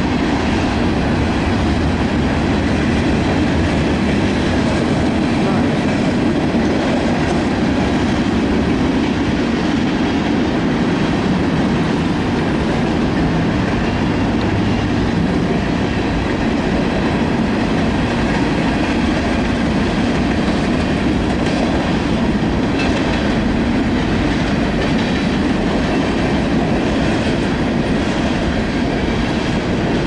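Freight cars of a Union Pacific manifest train rolling steadily past a grade crossing.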